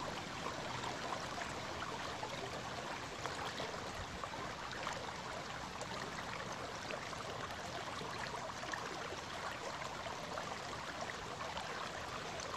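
Shallow river water running over a gravel riffle: a steady rush of flowing water with faint splashing.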